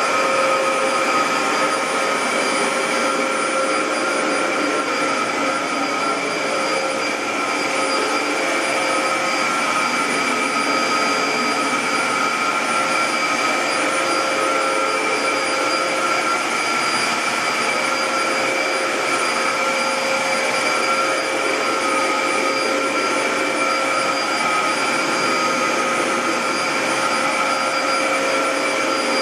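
Dyson DC07 bagless upright vacuum cleaner running steadily: a constant rush of air with a high, even motor whine.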